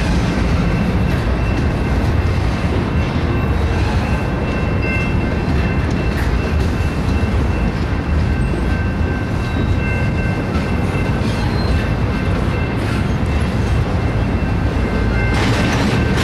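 BNSF double-stack intermodal container cars rolling past: a steady rumble of wheels on rail, with a thin, steady high whine over it and a little clatter near the end.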